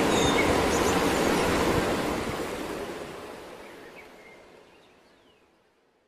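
Steady outdoor rushing noise, like running water, with a few faint chirps over it. It fades away over the last four seconds.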